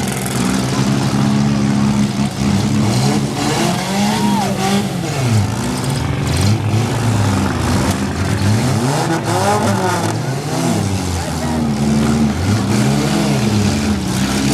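Several demolition derby cars' engines revving, their pitch rising and falling again and again as they accelerate and back off, with a few sharp knocks about halfway through.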